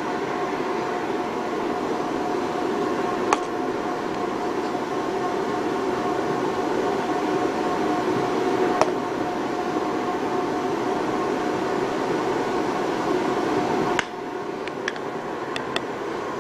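A steady mechanical hum, like a motor or fan running, with a few faint clicks scattered through it. The hum drops a little in level near the end.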